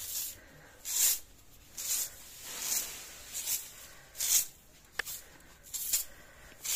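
Soft grass broom sweeping a dusty brick-paved floor: about eight short swishes in a steady rhythm, a little faster than one a second, with one sharp click about five seconds in.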